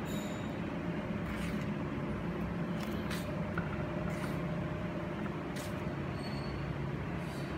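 Steady drone of machinery in a factory hall, with a few faint clicks spread through it.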